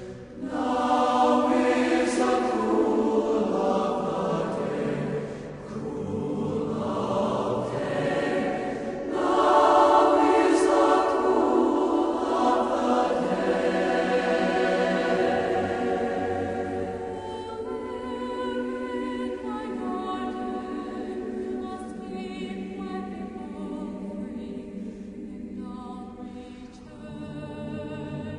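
Choir singing slow music in long, held chords. It swells about nine seconds in and grows softer in the second half.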